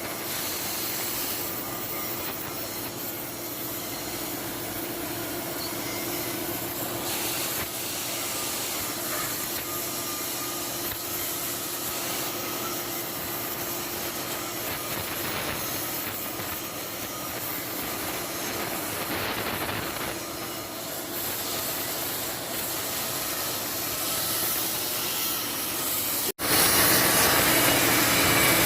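Oxy-fuel gas cutting torch on a semi-automatic track cutting machine hissing steadily while it cuts steel plate, with a steady low hum underneath. Near the end the sound drops out abruptly and comes back louder.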